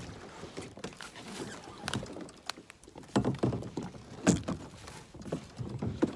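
Irregular knocks and scrapes on a plastic sit-on-top kayak as it is pushed off the bank into weedy shallows and boarded, the loudest knock about four seconds in.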